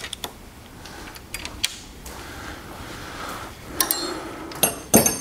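A couple of faint ratchet-wrench clicks as it begins, then sharp metallic clinks of hand tools and hardware near the end, the loudest just before it ends.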